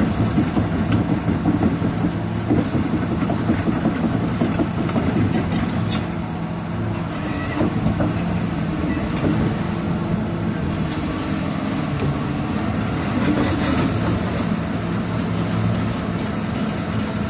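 Komatsu PC360-8MO excavator's diesel engine running steadily, with a thin high whine that stops about six seconds in.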